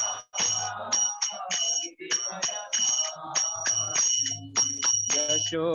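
Karatalas (small brass hand cymbals) clashed in a steady kirtan rhythm, about two to three strikes a second, each ringing high and bright, over low instrumental accompaniment between sung lines of a devotional chant.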